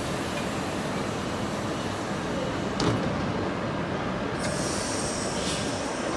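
Queensland Rail SMU 220 electric suburban train at the platform, with a steady running hum. A single thud about three seconds in as the doors shut, then high-pitched whining tones from about four seconds as the train starts to move off.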